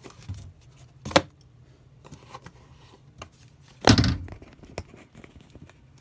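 Handling clatter of metal Zippo lighters being picked through: a sharp click about a second in, scattered small clicks, and a louder thump about four seconds in.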